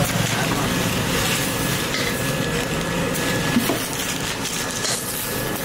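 Steady street noise of traffic and a busy roadside food stall, with a few light knocks.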